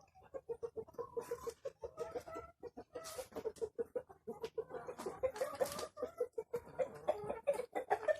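Laying hens clucking in a rapid, continuous run of short low clucks, several a second, with a few brief rustling noises among them.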